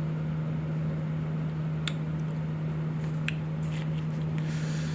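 Steady low hum of an air conditioner, with two light clicks of a small spoon against an ice cream cup, about two seconds and about three seconds in.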